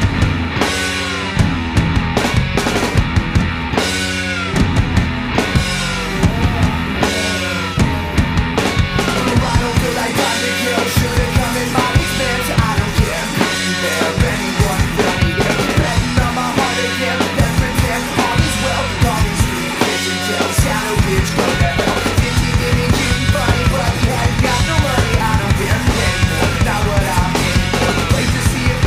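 Punk-rock band recording: drum kit keeping a steady beat under electric guitar and bass, with repeated falling pitch sweeps in the upper part.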